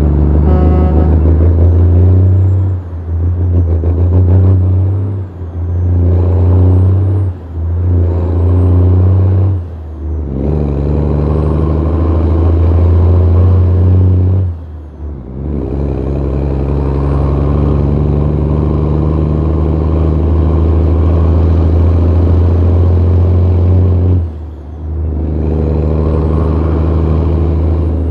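Western Star truck's diesel engine heard at its vertical exhaust stack while the truck pulls away: a loud, steady exhaust note that drops off briefly about six times, as at gear changes, more often in the first ten seconds, with a faint high whistle rising and falling with the revs.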